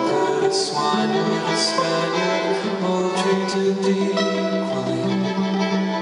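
Amplified solo violin playing live, with plucked notes over held notes.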